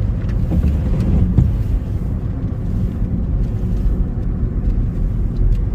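Road and engine noise of a car heard from inside the cabin while driving: a steady low rumble.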